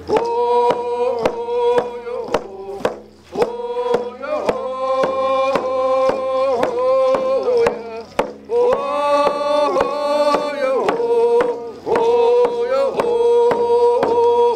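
A man singing in long held notes while beating an octagonal hand drum with a beater in a steady beat of about three strokes a second. The singing comes in phrases with short breaks between them, and the drum keeps going through the breaks.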